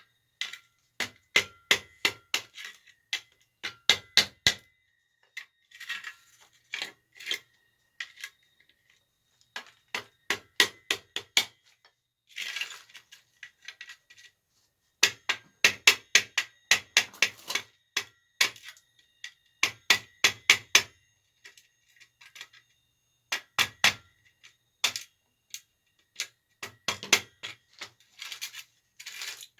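Small tactile switches being knocked apart with a tool: quick runs of sharp metallic taps, several to a run, with short pauses between runs and a faint metallic ring.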